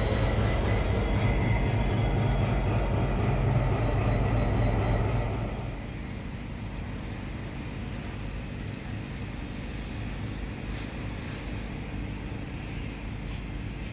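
Diesel train running, a steady low engine drone that falls away about five and a half seconds in, leaving a quieter, even rumble.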